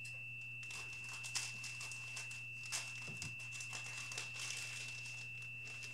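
Faint rustling and crinkling of a model kit's paper instruction booklet and packaging being handled and opened, in scattered short crackles over a steady low hum.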